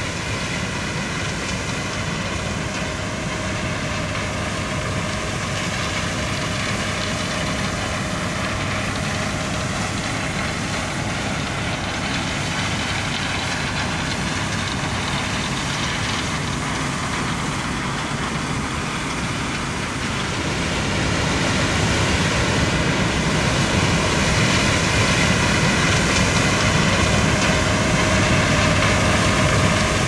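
Steady drone of heavy harvest machinery engines from a combine harvester and a tractor pulling a grain cart, with a constant hum and several held tones. It grows louder about two-thirds of the way through.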